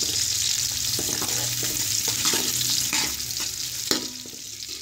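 Sliced onions sizzling in hot cooking oil in a steel pot over a high flame, stirred with a metal spoon that clicks and scrapes against the pot now and then.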